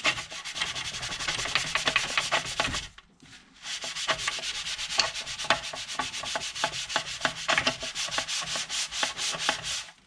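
A brush scrubbing a soaped plastic PC case part in quick back-and-forth strokes, about five a second, in two bouts with a short pause about three seconds in.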